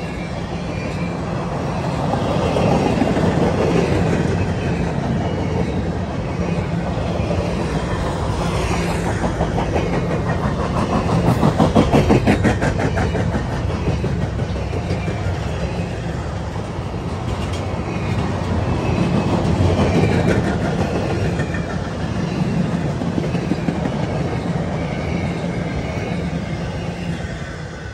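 CSX intermodal freight train's empty well cars rolling past: a steady rumble of steel wheels on rail that swells and eases as the cars go by, with a run of quick clickety-clacks around the middle. It fades off as the last car passes near the end.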